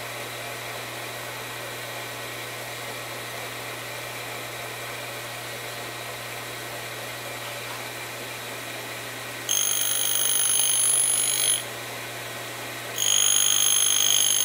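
Horizontal-spindle grinder running with a steady hum. Twice, about two-thirds of the way in and again near the end, the wheel grinds the cutting face of a counterbore with a loud, high-pitched screech lasting about two seconds each time.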